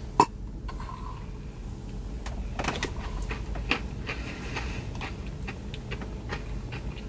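Scattered small clicks and taps over a low steady hum, with one sharper click just after the start.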